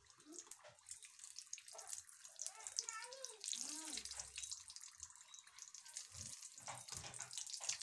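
Samosa deep-frying in hot oil in an iron karahi: the oil sizzles and crackles steadily while a wire skimmer turns it, with a few soft knocks near the end.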